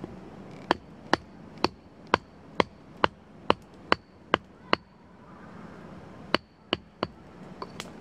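Knife blade chopping into wood: about ten sharp strikes at a steady two to three a second, each with a faint metallic ring. After a short pause come three more strikes and two light taps.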